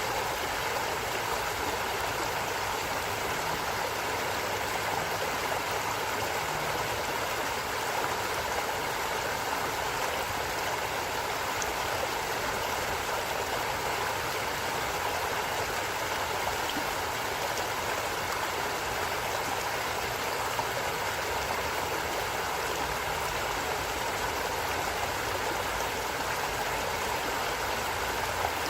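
Stream of water flowing steadily over rocks, a constant rushing and gurgling.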